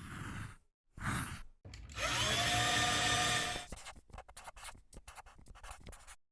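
Two short noisy sounds, then a power tool whirring steadily for under two seconds, its pitch rising a little as it spins up, followed by a run of quick light clicks.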